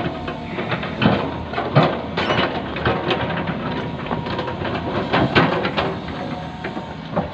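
Hydraulic excavator at work digging and levelling fill soil: its engine runs steadily under irregular knocks, clanks and crunching from the bucket and soil, loudest about a second in and again a little past five seconds.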